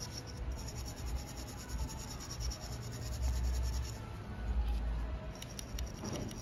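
Gloved hands handling a small carburetor's aluminium body, with rubbing and scraping of the glove on metal. A few light metal clicks come near the end.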